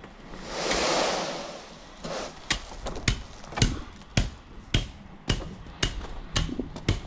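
A short rushing scrape near the start, then a steady run of sharp knocks, about two a second.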